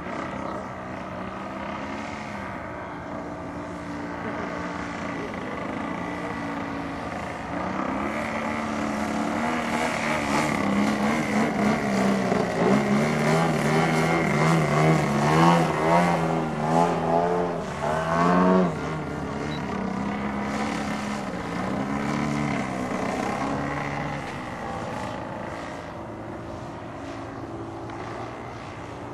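Engine and propeller of a 102-inch QuiQue Yak-54 radio-controlled aerobatic model plane in flight, the pitch rising and falling with throttle changes as it manoeuvres. It is loudest a little before the middle, where the pitch wavers quickly, then drops back suddenly about two-thirds of the way through.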